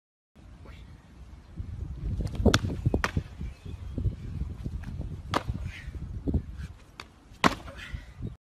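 Several sharp cracks, the loudest about two and a half and seven and a half seconds in, over a low rumble.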